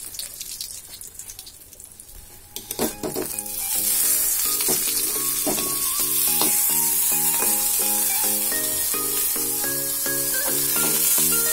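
Brinjal slices sizzling as they fry in hot oil in a kadai, with a spatula clicking against the pan as they are turned. Background music with a simple stepping melody comes in about three seconds in.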